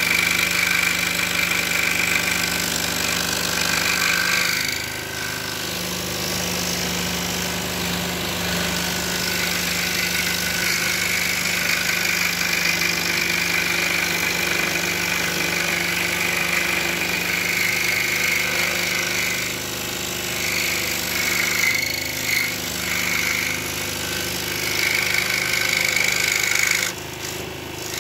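Pégas 21-inch precision scroll saw running, its reciprocating blade cutting through plywood. A steady machine hum carries a high tone that comes and goes as the work is fed, and the level dips briefly about five seconds in and again near the end.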